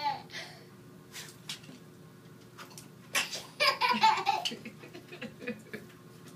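Toddler laughing in a small tiled bathroom: a laugh trails off right at the start, then after a quiet pause a loud burst of giggling comes about three seconds in and fades over the next second and a half.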